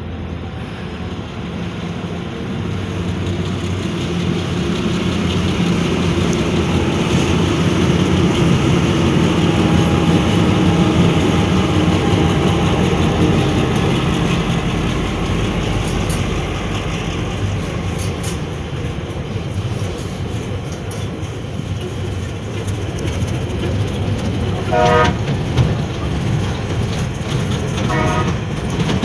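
Tasrail diesel freight train passing on the rails: a heavy rumble that swells to its loudest about ten seconds in and slowly eases off. Two brief high-pitched tones come near the end.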